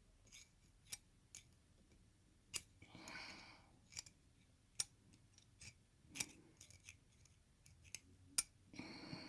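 Faint, irregular sharp metallic clicks and taps of small lock parts and tools being handled as a pin-tumbler lock is taken apart to get its pins and springs out.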